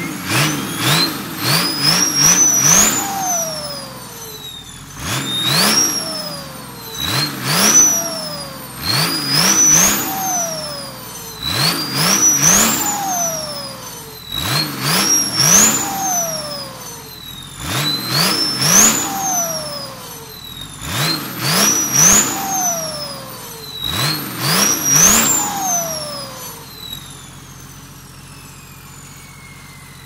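Holset HX40 turbocharger on a bare diesel engine, revved in quick blips about every two seconds: each blip spools the turbo up to a high rising whistle that falls away as it spins down. Near the end the revving stops, the engine settles to idle and a last falling whine fades out.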